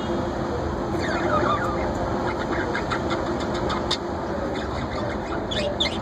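Budgerigars chirping in short, squeaky calls, a cluster about a second in and another near the end, over a steady background noise.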